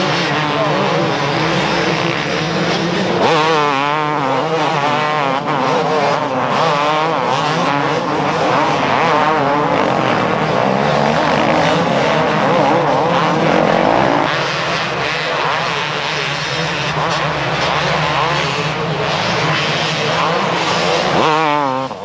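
A pack of motocross bikes racing, several engines revving at once, their pitch rising and falling as riders open and close the throttle over jumps and through turns.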